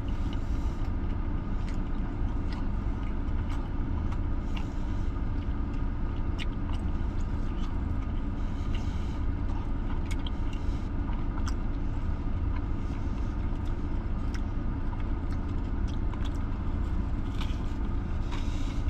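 Steady low rumble of a car idling, heard from inside the cabin, with faint scattered clicks and rustles of someone chewing a burger and handling its wrapper.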